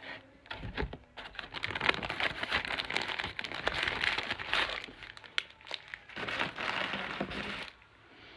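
Takeaway food wrapping and bag crinkling and rustling as a meal is unpacked, with many small clicks and knocks; it dies down near the end.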